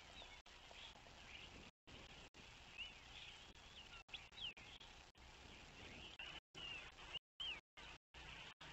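Faint small-songbird chirps and short whistled calls, several overlapping, over low background noise. The sound cuts out to silence for a split second several times, mostly in the second half.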